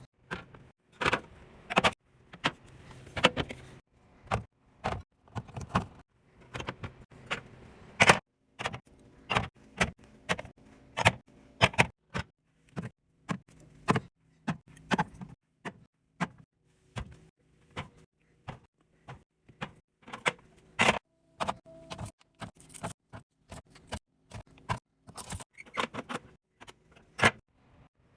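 Irregular clicks, knocks and clinks of plastic containers and jars being handled and set down on fridge shelves, several a second with uneven pauses.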